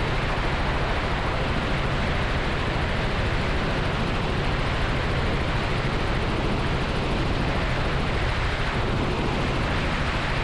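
Steady cabin noise of a Robinson R44 helicopter in cruise flight: the drone of its Lycoming six-cylinder piston engine and rotors with rushing air, heard inside the cockpit.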